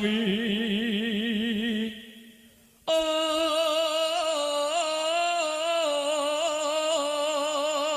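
Music from a Banyuwangi Jaranan Buto song: a slow sung melody held on long notes with wide vibrato over a low drone. It fades almost to nothing about two seconds in, then comes back suddenly about three seconds in as a sustained line stepping between notes.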